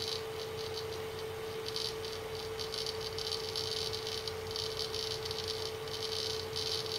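Seagate ST6000DX000 6TB 7200 RPM hard drive seeking loudly, a rapid clicking chatter that comes in clusters over a steady hum. The loud seeking is set off by small angle changes of the drive as it is tilted by hand, a known trait of this Seagate model.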